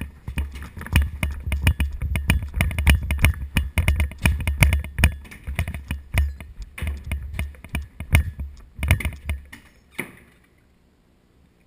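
Rapid, irregular clatter of knocks, thumps and rattles from a body-worn GoPro as an airsoft player moves fast: footsteps and gear jostling against the camera mount. It stops abruptly about ten seconds in.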